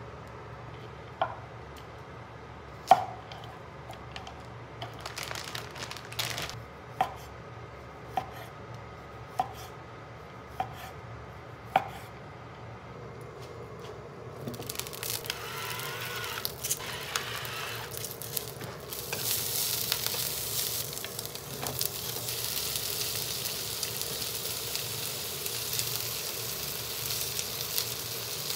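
About seven sharp, ringing taps of a ladle against the pan and bowl as batter is ladled into a frying pan. From about halfway, asparagus and sausage slices start frying in oil in a second pan, sizzling steadily and growing louder.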